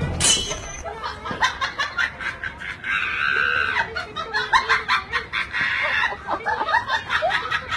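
A man laughing in repeated short bursts, right after a sudden sharp noise at the very start.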